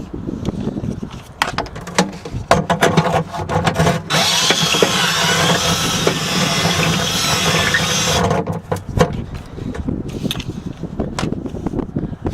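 Power drill enlarging a hole to fit a rivet, running steadily for about four seconds, starting about four seconds in. Before and after, clicks and knocks from handling the drill and the work.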